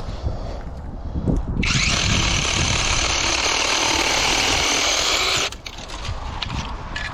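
Seesii battery-powered mini chainsaw starting up about one and a half seconds in, running steadily as it cuts through a branch, then stopping near the end.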